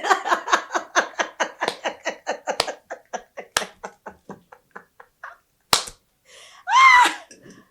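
A person laughing long and hard in quick rhythmic "ha-ha" pulses, about five a second, that fade away over about five seconds, followed by a few sharp clicks and one short voiced exclamation near the end.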